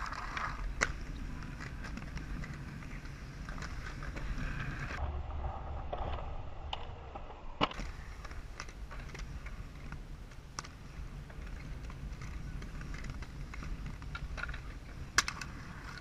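Inline skate wheels rolling over concrete in a steady low rumble, with a few sharp clacks as skates land on and slide along ledges and a rail.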